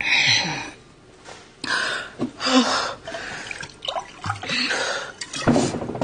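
A drink gulped from a glass and more poured from a bottle into it: several short splashy, hissing bursts of liquid.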